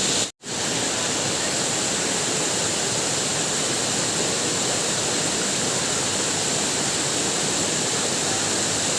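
Waterfall: a steady, even rush of falling water. It cuts out to silence for a split second about a third of a second in, then resumes unchanged.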